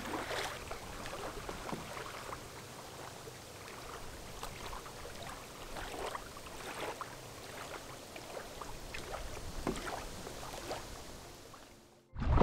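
Small waves lapping on a sandy lakeshore with soft, irregular little splashes over a steady breezy hiss; it cuts off suddenly near the end.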